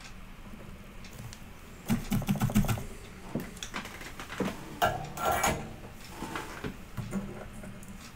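Clicking and clattering of a soldering iron, solder and a small circuit board being handled on a work surface: a quick run of clicks about two seconds in, another cluster around five seconds, and a few scattered light knocks.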